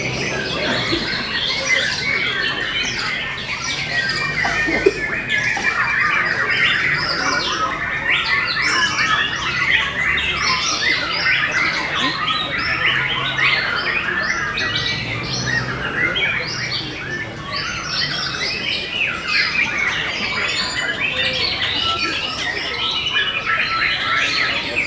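Many caged canaries singing at once: a dense, continuous chorus of overlapping trills and chirps.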